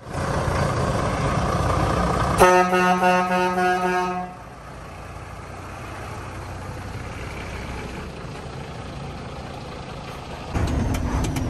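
Scania V8 diesel lorry engine running, with a loud truck horn blast about two and a half seconds in that lasts nearly two seconds; the engine is quieter after the horn and louder again near the end.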